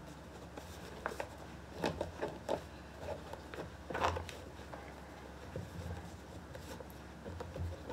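Cotton shoelaces being pulled through the eyelets and tied on suede sneakers: faint rustling and rubbing of lace and shoe with a few soft clicks, the clearest about four seconds in.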